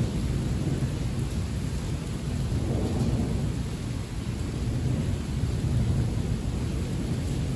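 Heavy rain hissing steadily under a low, continuous rumble of thunder that swells and fades, without a sharp clap.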